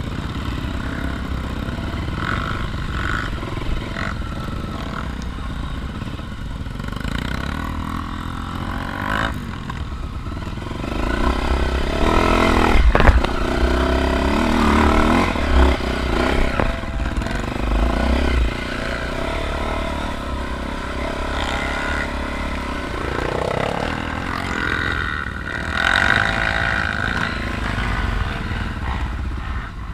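Off-road motorcycle engine running, revving harder for several seconds about midway, with one sharp knock in the middle of that burst.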